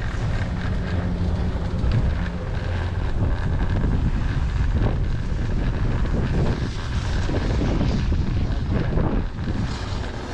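Wind buffeting the microphone: a loud, gusty low rumble, with a brief steady hum underneath in the first two seconds or so.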